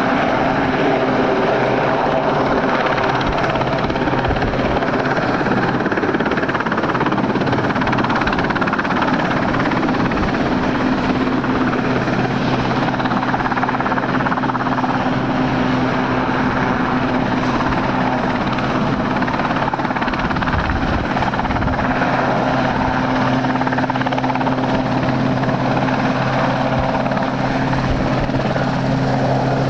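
Westland Sea King helicopter flying low and hovering: the loud, steady running of its rotors and turbine engines. A steady low hum grows stronger about a third of the way in.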